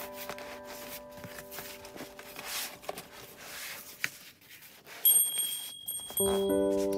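Edited background music: sustained notes fade out, then a quiet stretch with faint scattered noise. About five seconds in, a high ringing chime tone sounds, and the music starts again just before the end.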